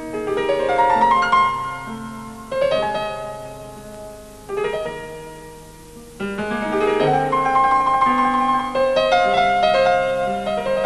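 Piano playing a slow, lyrical piece in phrases. Three flourishes each ring out and fade away, then from about six seconds in a fuller, busier passage holds at a steady loudness.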